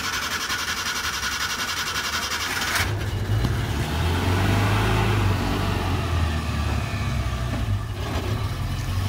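A Maruti Gypsy being started: a fast rhythmic whirr of cranking for about three seconds, then the engine catches and runs, rising in revs for a couple of seconds before settling to a steady run.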